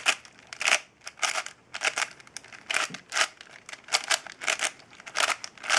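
A lubricated 5x5x4 cuboid twisty puzzle being turned by hand: its plastic layers click as they snap into place, in a steady run of two or three clacks a second.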